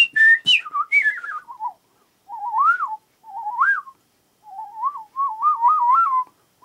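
A man whistling: a warbling run that slides down from high to low, then three short phrases with quick wavering trills. A few sharp clicks sound in the first half-second.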